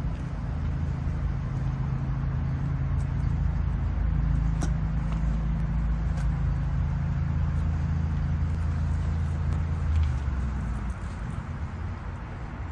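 A motor vehicle's engine running steadily with a low hum. Its note shifts about a third of the way through and drops near the end.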